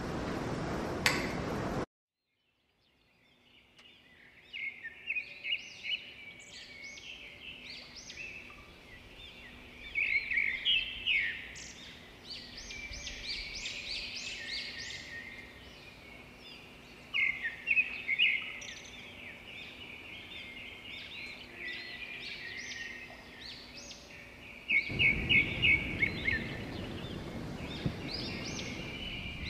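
Many small birds chirping and twittering in quick runs of short high calls, fading in just after an abrupt cut to silence about two seconds in. A steady hiss, with one click, comes before the cut, and a steady hiss joins the birds again near the end.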